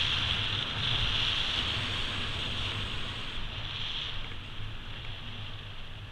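Wind rushing over the microphone together with the hiss of skis sliding over snow on a downhill ski run, fading toward the end.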